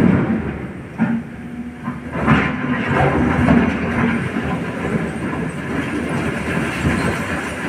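SANY hydraulic excavator's diesel engine working under load, with rock clattering and a few sharp knocks as the bucket handles broken stone; loudest at the very start, then a steadier mechanical rumble.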